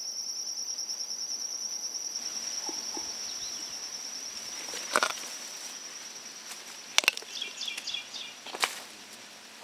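A high, steady insect trill that fades out after the middle. Over it come a few sharp crunching clicks about two seconds apart as a Galapagos giant tortoise bites into a small manzanillo fruit.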